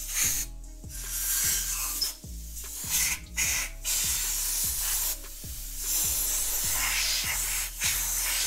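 Compressed-air blow gun blasting in about six bursts of hiss with short breaks, blowing debris out of a manual transmission case.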